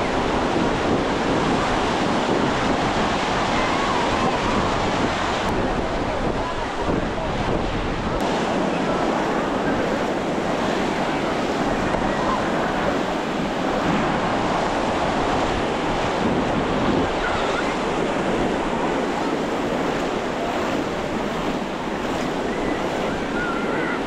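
Ocean surf washing continuously onto a sandy beach, with wind buffeting the microphone.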